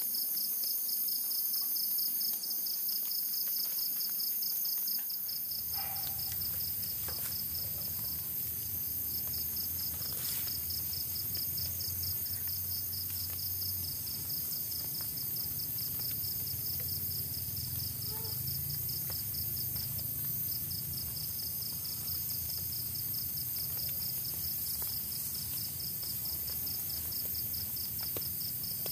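A chorus of night insects keeps up a steady, fast-pulsing high trill. A low rumble joins in about five seconds in.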